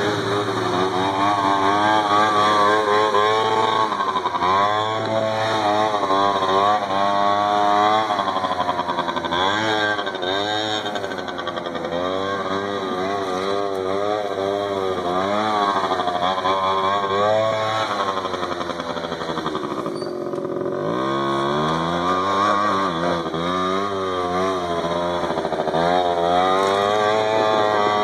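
Small engine of an Arctic Cat 50 youth ATV revving up and down over and over as it is ridden hard. About twenty seconds in the engine drops briefly toward idle, then revs up again.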